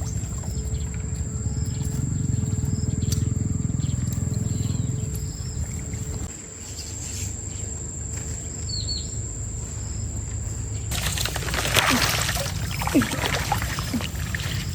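Low, steady rumble of a fast-flowing stream, with a few faint high chirps. About eleven seconds in, water splashing starts and grows louder.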